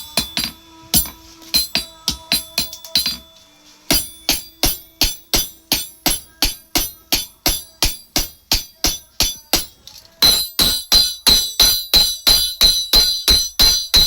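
Hammer blows on hot steel on an anvil, forging a sickle blade, each blow ringing. The blows are irregular at first, then settle into an even beat of about three a second, turning brighter and a little quicker about ten seconds in.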